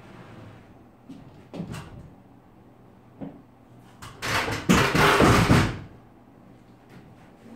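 Countertop being handled down from an overhead ledge: a few light wooden knocks, then a loud scraping clatter for about a second and a half a little past halfway.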